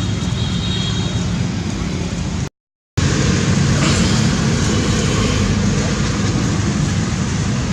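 Steady outdoor background rumble, like road traffic, broken by a half-second gap of dead silence about two and a half seconds in. A brief high chirp sounds near the start.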